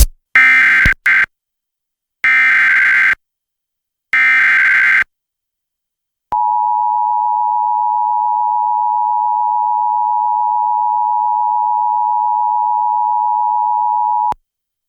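Emergency Alert System header: three short bursts of screeching digital data about two seconds apart, then the attention signal, a steady tone held for about eight seconds that cuts off abruptly. Together they announce an emergency alert, here a severe thunderstorm warning.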